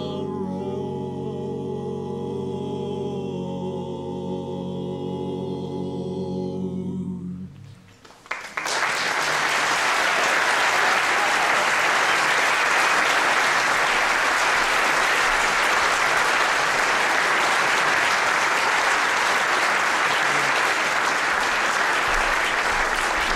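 A cappella barbershop quartet of four male voices (tenor, lead, baritone, bass) holding the final chord of a song in close harmony. It cuts off about seven seconds in, and after a moment's hush the audience applauds, louder than the singing.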